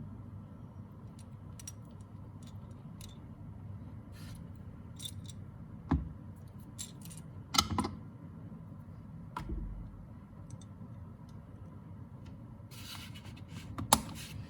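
Small clicks and taps from handling a die-cast toy motorcycle and its packaging, with a few sharper knocks, the loudest near the end, over a steady low hum.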